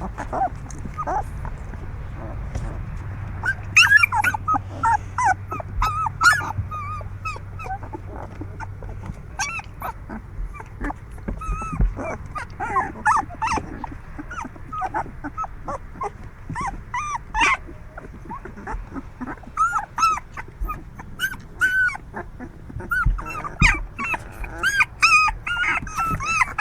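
Young puppies whimpering and yipping: many short, high squeals overlapping one another, on and off throughout.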